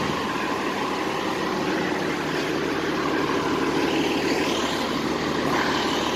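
Steady drone of an idling shuttle bus engine, with a low hum underneath.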